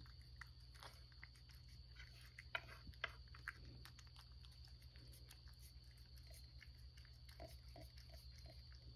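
A cat eating wet food from a ceramic dish: faint, quick chewing and licking clicks, with a few sharper clicks about two and a half to three and a half seconds in as a spoon works the food in the dish, over a steady low hum.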